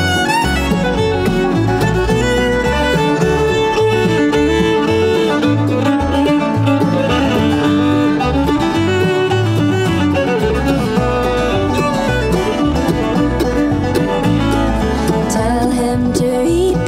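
Acoustic bluegrass band playing an instrumental passage: fiddle, banjo and guitar over a low bass line.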